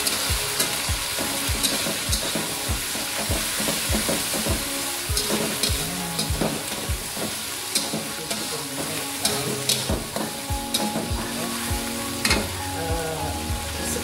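Cencaluk (fermented shrimp) with onion and chilli paste sizzling steadily in oil in an aluminium wok, stir-fried with a slotted metal spatula that scrapes and knocks against the wok many times.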